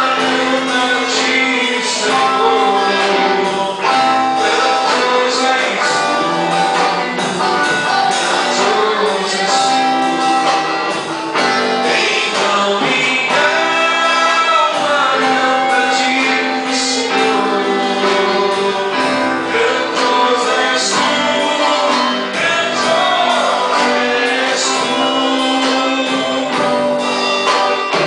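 Church band playing a gospel worship song, with singing over the instruments.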